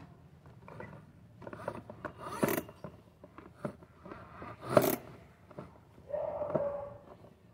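A cloth rubbing and scrubbing over a hard plastic toy car, in scattered rustling strokes with a few knocks of plastic, the loudest about two-thirds of the way through. Near the end comes a brief steady tone.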